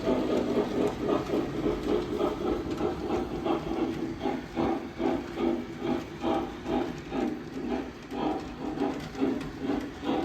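Lionel O-scale Southern Pacific AC-12 cab forward model's onboard sound system playing steam locomotive sounds after being powered up, a rhythmic pulsing at about two to three beats a second.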